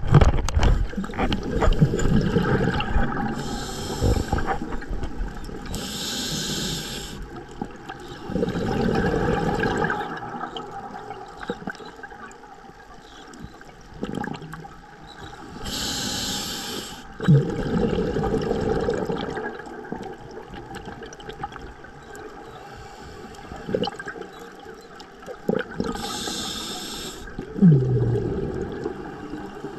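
Scuba diver breathing through a regulator underwater: a short hissing inhale followed by a longer gurgling rush of exhaled bubbles, repeating roughly every ten seconds.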